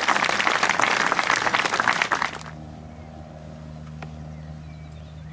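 Spectators applauding a holed putt on a golf green, stopping abruptly about two seconds in. Then a steady low hum, with one crisp click of a golf club striking a chip shot about four seconds in.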